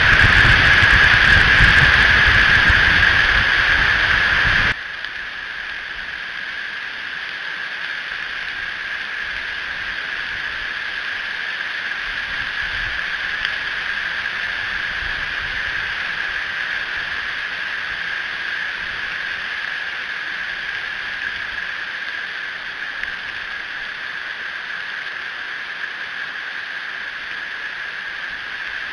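Steady rain and wind noise on an outdoor nest-cam microphone during a thunderstorm, loud and rumbling for the first few seconds, then dropping abruptly to a softer even hiss with a steady high note running through it.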